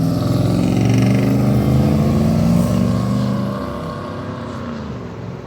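A motor vehicle's engine running close by, then fading away after about three and a half seconds as it moves off.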